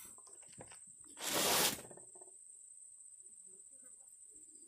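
A brief rustling scrape of handling noise, a bit over a second in and lasting under a second, over a steady high-pitched whine.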